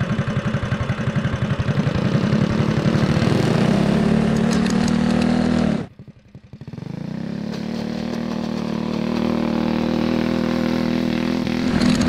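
Go-kart's Tillotson 212 single-cylinder four-stroke engine running under throttle, revving up from low speed to a steady high pitch. It drops away abruptly about halfway through, then comes back and climbs again.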